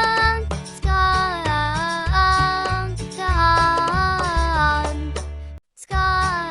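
Children's song: a sung melody with notes that slide between pitches, over a backing with a steady bass line. It cuts out briefly near the end, then resumes.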